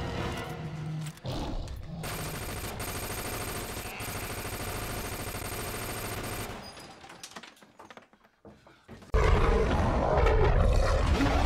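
Horror-film sound effects: a dense rush of noise that fades away over a few seconds, then a loud, growling werewolf roar that cuts in suddenly about nine seconds in.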